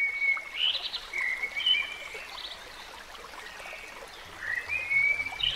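Stream-like water ambience with several high whistled calls over it, some gliding upward.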